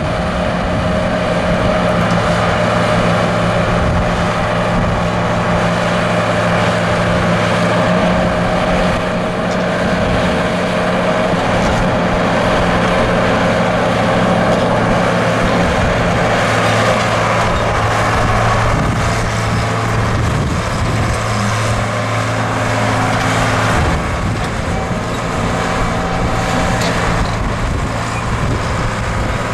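Case 6T-590 six-cylinder diesel engine of a 1982 Case 880C crawler excavator running steadily while the boom, stick and bucket are worked and the upper structure swings. A higher steady tone sits over the engine note until about eleven seconds in, and the engine eases slightly about 24 seconds in.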